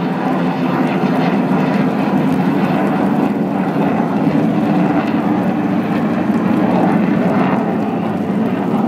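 Military jet aircraft passing at an air show; the jet engine noise is loud and steady throughout.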